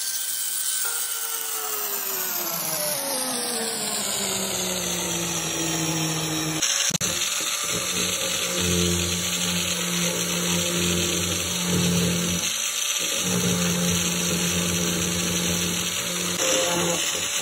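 Electric angle grinder driving a core cutter (hole saw) through the plastic wall of a water tank. The motor whine drops in pitch over the first several seconds as the cutter bites into the plastic, then holds steady at a lower pitch while the hole is cut.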